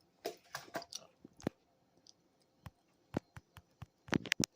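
Irregular clicks and taps, a dozen or so, with a loud cluster of them close together near the end.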